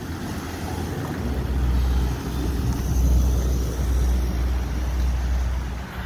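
Wind buffeting the microphone on a moving bicycle: a low rumble that swells about a second in and holds, with tyre hiss on wet asphalt beneath it.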